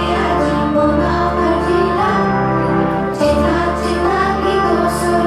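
A song in Odia: singing over an instrumental accompaniment with a steady bass line.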